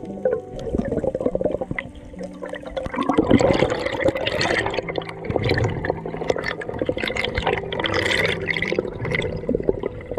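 Underwater bubbling and rushing water on an action camera's microphone, swelling loudest about three seconds in and again near eight seconds. Background music with held notes runs underneath.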